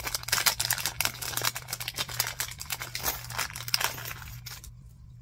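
Small plastic packet crinkling as it is pulled and torn open by hand, a dense run of crackles that stops about four and a half seconds in.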